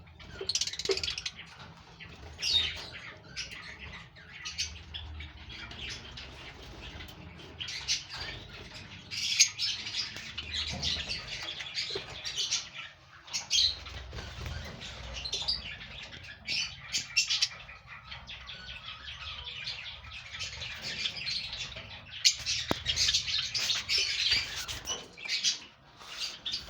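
African lovebirds chirping and chattering in a dense, continuous stream of sharp, high calls, with scattered short clicks among them.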